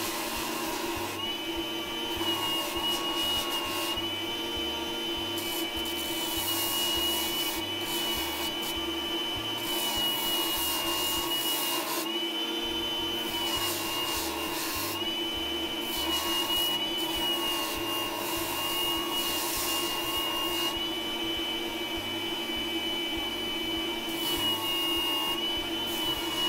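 Old food processor's motor spinning a homemade abrasive sanding disc with a steady whine. A steel chisel is pressed against the disc in repeated passes of a second or two each, and each contact adds a gritty grinding rasp as the chisel is sanded.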